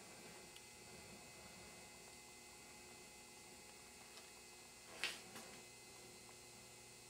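Near silence with a steady low electrical hum, broken about five seconds in by a sharp click and a fainter second click just after.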